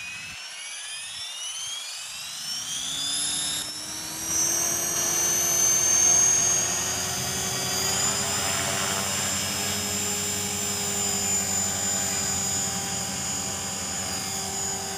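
Align T-Rex 450 Sport electric RC helicopter spooling up. The motor and gear whine rises in pitch over the first few seconds, then holds steady at flying speed with rotor blade noise as the helicopter lifts off the pad near the end.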